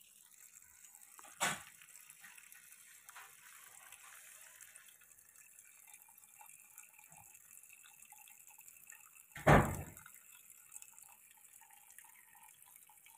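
Faint trickling and dripping of cold water poured over blanched cauliflower, broken by two short thumps, the second and louder one later on.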